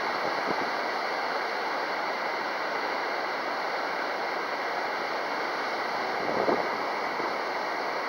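Wind rushing across the microphone, steady, with a brief stronger gust about six and a half seconds in.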